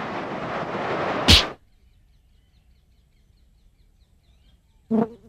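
A rushing, wind-like whoosh sound effect for a gliding lizard, ending in a sharp swish about a second and a half in. Then faint high chirps, and a drum hit with a low ringing tone near the end.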